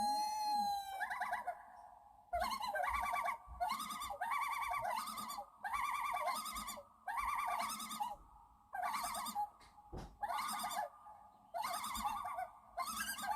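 A played recording of a wild animal calling: a string of short, quavering, trilled calls, each under a second long, repeating about once a second with a few short pauses.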